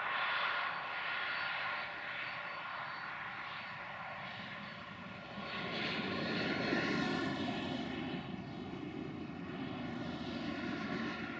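Multirotor drone's propellers whining steadily, with a lower hum joining about five seconds in.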